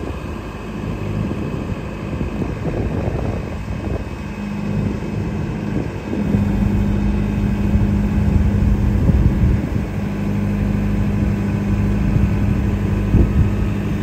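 New Holland B110B loader backhoe's diesel engine running while the backhoe boom and bucket are moved hydraulically. The engine grows louder and steadier about six seconds in.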